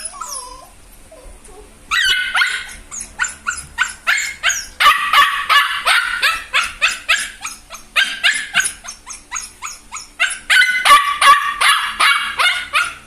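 Two-month-old half-husky, half-aspin puppy yipping and whining in a fast string of short high calls, about three or four a second, after a brief falling whimper at the start.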